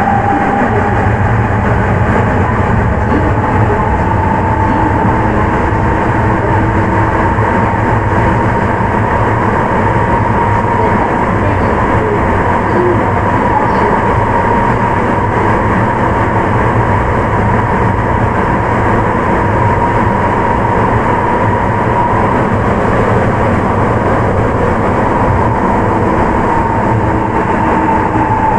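Sapporo Municipal Subway 9000-series train with Hitachi IGBT-VVVF drive running at speed through the tunnel, heard from inside the car. There is a steady low rumble from the rubber-tyred wheels and a steady motor whine that climbs slightly in pitch in the first seconds and sinks a little near the end.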